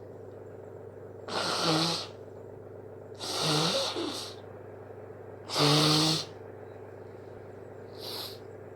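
A person with hay fever making four loud, breathy blasts about two seconds apart, each ending in a short low vocal sound, then a weaker one near the end.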